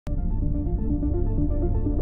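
Electronic background music: a deep bass under quick runs of short repeated notes.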